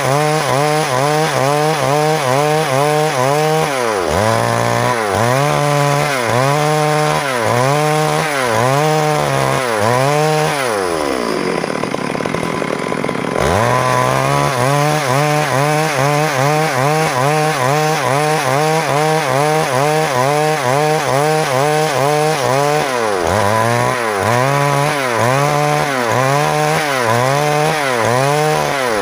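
Stihl MS382 two-stroke chainsaw ripping a log lengthwise along the grain, the engine at high revs dipping and recovering about one and a half times a second as the bar works through the cut. About ten seconds in the revs fall away, then climb back to full throttle a few seconds later; the engine runs steady for a while before the rhythmic dipping returns.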